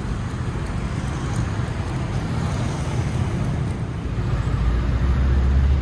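Low, steady engine rumble that grows louder about four and a half seconds in.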